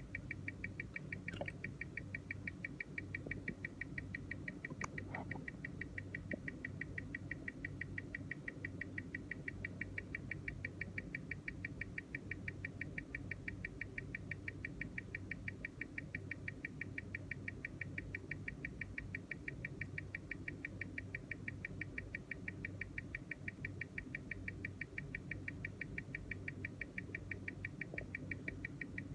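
Tissot Powermatic 80 automatic movement ticking steadily at 21,600 beats per hour, about six even ticks a second, picked up by a timegrapher's microphone and played through its speaker. The evenly spaced ticks match the low beat error (0.1 ms) the timegrapher reads, a sign of a well-regulated movement.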